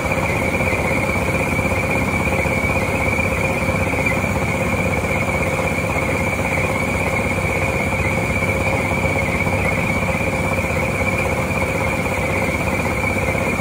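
John Deere V451R round baler running, its rollers turning: a dense, steady mechanical noise with a constant high-pitched whine over it.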